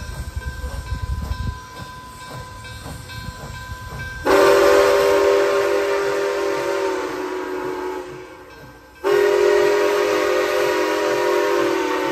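Nickel Plate Road 765, a 2-8-4 Berkshire steam locomotive, blowing its chime steam whistle in two long blasts: the first starts suddenly about four seconds in and dies away, the second follows about a second later and holds on. Before the whistle, the locomotive's exhaust beats faintly and evenly.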